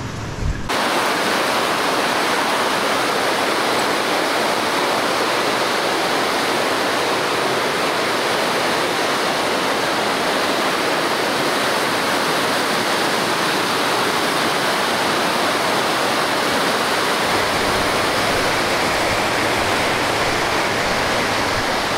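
Whitewater rapids rushing over rocks: a steady, loud rush of water that starts abruptly just after the beginning, with a deeper rumble added near the end.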